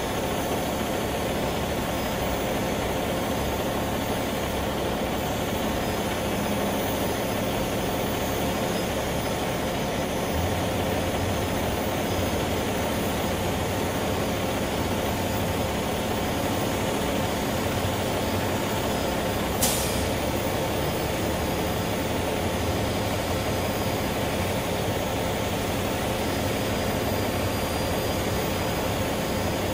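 Steady mechanical drone with a low hum, unchanging throughout, with one short sharp click about two-thirds of the way in.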